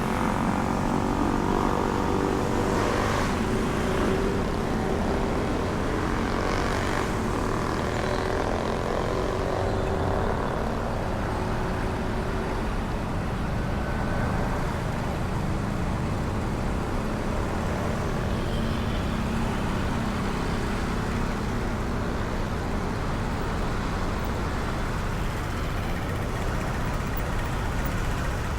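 Honda Beat scooter's small single-cylinder engine running steadily while riding, with heavy wind and road noise.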